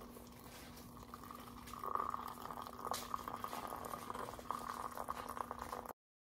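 Water heating toward the boil: a soft bubbling, crackling hiss over a faint steady hum, growing louder about two seconds in and cutting off abruptly near the end.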